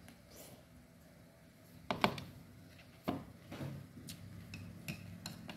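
Chopsticks clicking and tapping against a ceramic noodle bowl, a few sharp separate clicks, the loudest pair about two seconds in and another about a second later.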